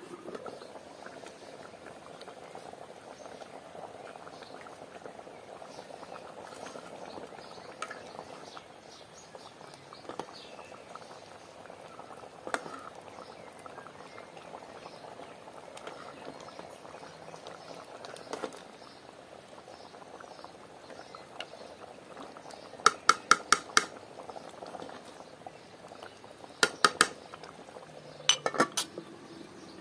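Ghormeh sabzi herb stew simmering in an aluminium pot, a steady bubbling, stirred with a metal spoon. Near the end come three quick runs of sharp metal clinks as the spoon and lid knock against the pot, and the lid goes back on.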